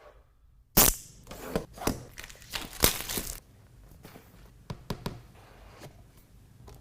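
Smartphone retail box and its plastic wrap handled by hand in a small room. A sharp knock comes about a second in, followed by tearing and crinkling strokes for about two and a half seconds, then a few light clicks.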